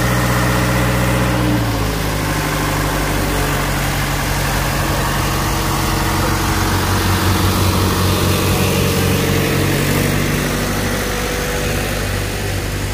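Diesel engine of a Bomag BW 212 single-drum road roller running close by, its pitch stepping down as the revs drop about two seconds in, then running steadily.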